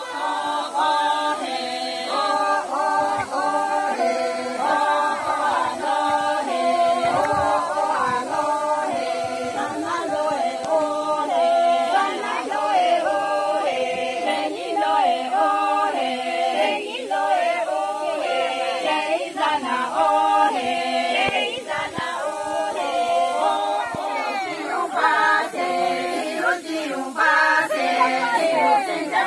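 A group of Sangtam Naga women singing a song together without instruments, the melody moving in steps between held notes.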